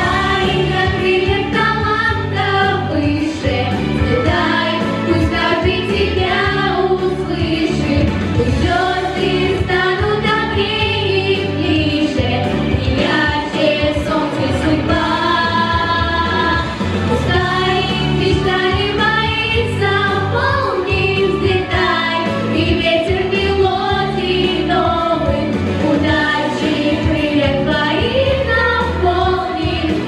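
A group of girls singing a song together into handheld microphones, amplified, over a steady musical accompaniment.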